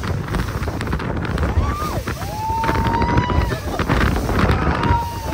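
Wind buffeting the microphone over the rumble of a tour boat ride, with three long, drawn-out calls held at one pitch in the second half.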